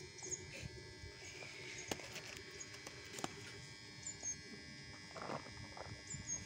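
Quiet serving sounds: a steel spoon scooping rice from an aluminium pot onto plastic plates, with a couple of sharp clicks of metal on metal or plastic. Faint, repeated high chirps of small birds in the background.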